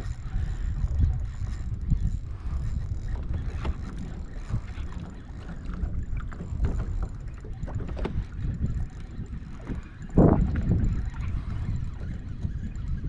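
Wind buffeting the microphone on a fishing kayak, with scattered small knocks from the boat and tackle. About ten seconds in there is one louder thump.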